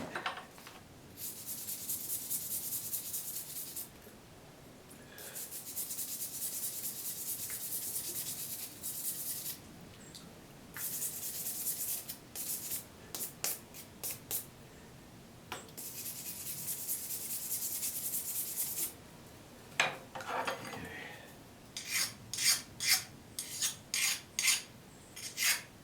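Metal file drawn across a freshly quenched steel arrowhead: four long strokes, then a quick run of short strokes near the end. The file skates over the surface without biting, the sign that the steel has hardened in the quench.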